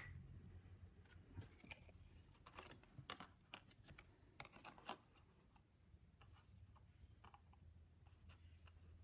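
Faint clicks and light taps of stiff white painting cards and a small plastic paint cup being handled and set down, clustered about two to five seconds in, over a faint low room hum.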